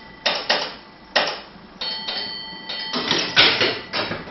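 A bell rings about two seconds in and fades over about a second, among a run of sharp metallic clanks and knocks. The clanks are loudest and come thickest near the end.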